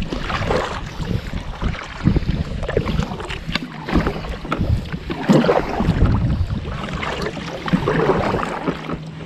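Double-bladed kayak paddles dipping and pulling through calm water, a swell of splashing and dripping every second or two, with wind rumbling on the microphone.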